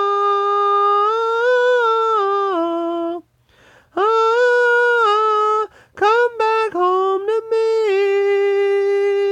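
A solo singer holding long wordless notes, unaccompanied, in three phrases. The first note steps down a little before breaking off about three seconds in, the second is held for nearly two seconds, and the last starts with a few quick wobbles and then settles into one long steady note.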